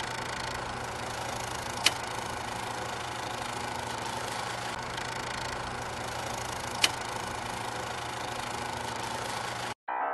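Film projector running with a steady mechanical clatter and hum, with two sharp pops about five seconds apart; it cuts off suddenly near the end.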